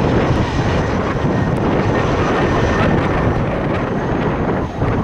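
Jet airliner's engines running loud and steady, a dense rumble with a faint high whine over it.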